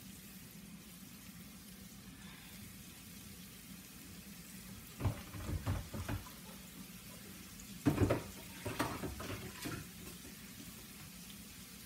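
Sliced white onions frying in oil in a nonstick pan, a steady soft sizzle. A few brief knocks or clatters come around the middle and again a little later.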